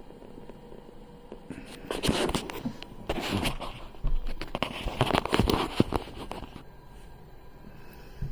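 Handling noise from a phone being gripped and repositioned close to its microphone: rubbing and clicking in bursts from about two seconds in, stopping a little after six and a half seconds.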